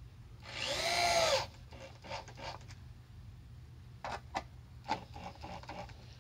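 Power drill driving a screw into a wooden slat: the motor whirs once for about a second, its pitch rising then falling as it winds down. Light clicks and knocks follow.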